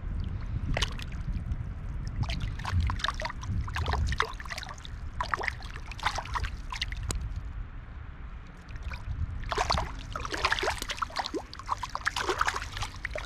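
Irregular water splashing as a hooked trout thrashes at the surface while being brought in, in two bouts with a lull between, over the steady low rush of the river around the wading angler.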